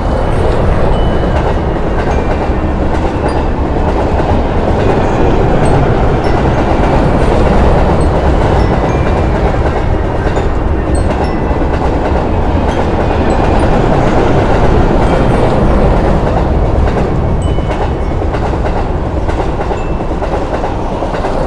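A train running along the track: a loud, steady rumble that sets in suddenly and holds on evenly, with faint brief squeals above it.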